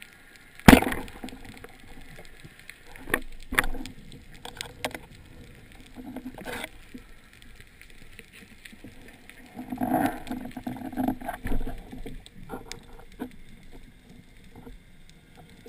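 A speargun fires underwater about a second in: one sharp, loud crack as the shaft is loosed and strikes a dentex. After it come scattered clicks and knocks of the gun, shaft and line being handled underwater.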